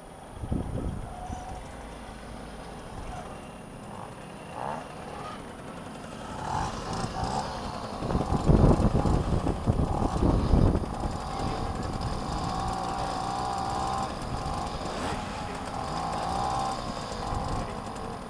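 Two-stroke moped engines running as several mopeds ride up and stop alongside, loudest about eight to eleven seconds in, then settling into a steady idle.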